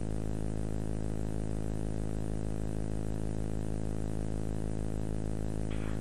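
Steady low electrical hum with a buzzy row of overtones and faint tape hiss, the background noise of an old VHS recording of a television broadcast.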